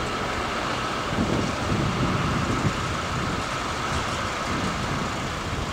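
V100 diesel locomotive running light, its engine a steady low noise as it comes closer, with irregular low gusts of wind on the microphone.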